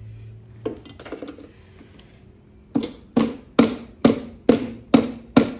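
Metal tools working to free the stuck crankcase cover of a Honda GCV160 mower engine: a few light clinks and scrapes, then, starting about three seconds in, steady hammer blows about two and a half a second, each ringing briefly.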